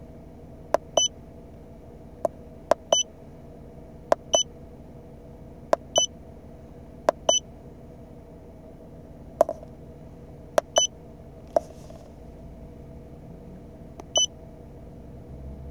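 Handheld diagnostic scan tool's keypad being pressed: sharp button clicks at irregular intervals, most followed a moment later by a short high beep, seven beeps in all, over a steady low hum. The tool is being stepped through its menus to reset an oil service light.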